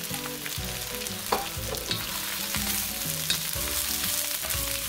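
Vegetables sizzling in hot oil in a wok as sliced mushrooms are tipped in and stirred with a wooden spatula. The spatula knocks against the pan twice with sharp clicks.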